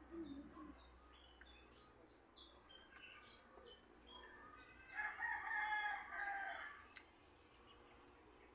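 A rooster crowing once, a single call of about two seconds starting about five seconds in, preceded by faint short bird chirps.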